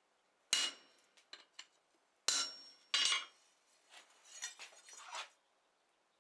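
Hand hammer striking a slitting chisel set on flat steel bar stock on an anvil, three ringing metallic blows as the chisel cuts the split in the bar. Softer metal clinks and clatter follow as the hammer is set down and the bar is handled.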